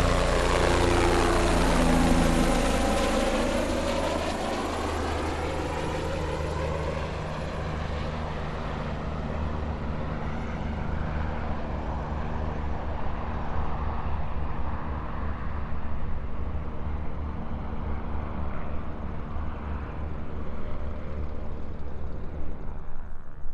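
Helicopter taking off: turbine and rotor sound whose tones sweep downward over the first few seconds, then a steady rotor beat under a wash of noise.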